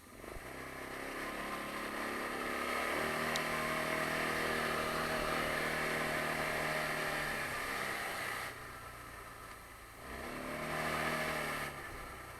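Taotao 150cc ATV engine pulling away, its pitch rising for about two seconds and then holding steady under throttle. It drops back when the throttle is released, speeds up again briefly, and drops off once more near the end.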